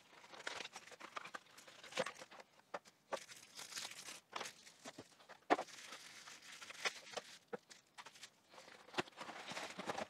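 Plastic wrapping crinkling and rustling in irregular bursts as bagged cables and parts are taken out of the box and set down, with a few light knocks among them.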